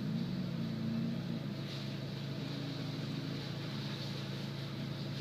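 A small 4x4's engine running steadily at low revs.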